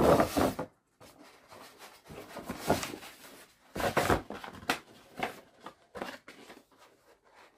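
Cardboard box being handled: rustling and scraping in several irregular bursts, loudest at the start and again about four seconds in, with a few short taps after.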